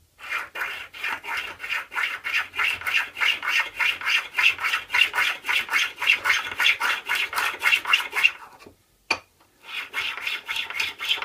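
Steel card scraper's edge rubbed rapidly back and forth along the coarse side of a combination water stone, a gritty scraping at about four strokes a second. It stops for about a second near the end, then starts again. This hones the filed edge flat and square, polishing it before a burr is turned.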